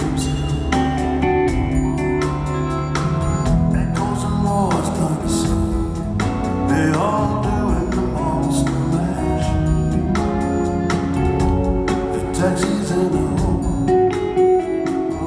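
Live band playing a slow rock song: a man singing over electric guitar, keyboards and a steady drum beat, recorded from the audience in a large hall.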